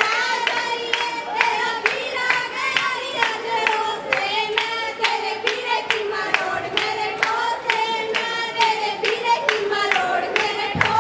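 Women singing a Haryanvi folk song in chorus to steady hand-clapping, about two claps a second.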